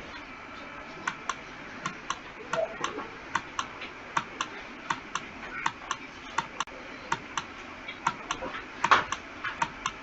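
A regular series of short, sharp clicks, about three a second, with one louder click near the end.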